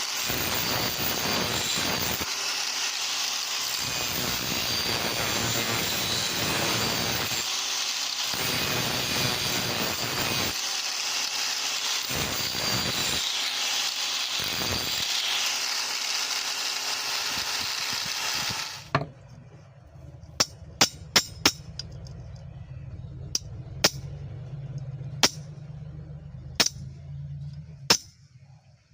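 A power tool grinding metal runs steadily for about nineteen seconds, then cuts off suddenly. After that come a dozen or so sharp, irregular taps over a low hum.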